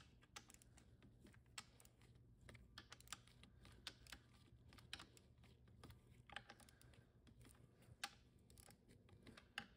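Faint, irregular ticking of a torque wrench ratchet as the valve body bolts of an automatic transmission are run down to 80 inch-pounds, with a few sharper clicks scattered through.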